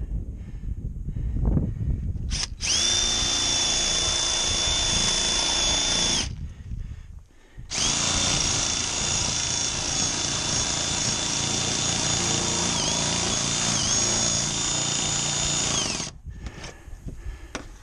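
Cordless 20V power shear cutting strips into a steel roof panel: its motor runs with a steady high whine for about four seconds, stops briefly, then runs again for about eight seconds. Late in the second run the pitch dips briefly twice as the blades bite under load.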